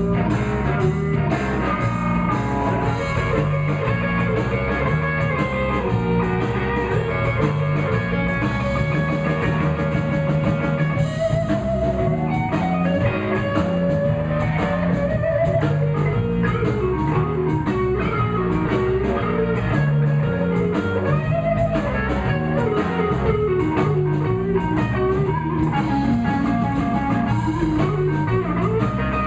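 Live blues band playing an instrumental break: electric lead guitar soloing over bass and drum kit.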